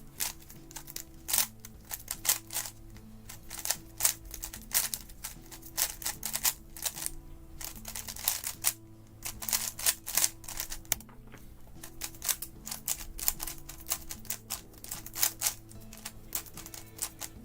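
GAN 11 M magnetic 3x3 speedcube being turned fast in a solve: a rapid, irregular run of plastic clicks and clacks, with background music underneath.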